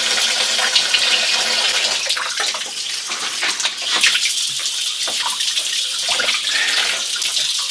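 Tap water running into a stainless steel sink while raw chicken pieces are rinsed under it, with a few scattered clicks and knocks from handling in the sink.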